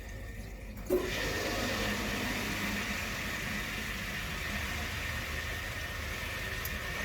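Electrolux GCB 11 Basic X Fi gas boiler switching on with a click about a second in, then running steadily with a low hum and a thin steady high tone as its newly replaced circulation pump starts; the start-up is noisy and rumbling.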